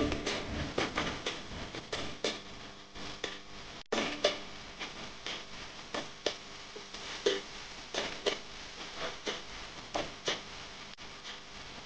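Knife cutting a bunch of parsley on a plastic cutting board: irregular knocks of the blade against the board, about one or two a second.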